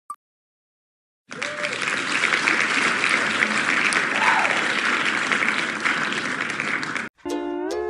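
A spinning-wheel picker ticks once as it stops, then its winner sound effect plays: recorded crowd applause starting about a second later and running for about six seconds before cutting off.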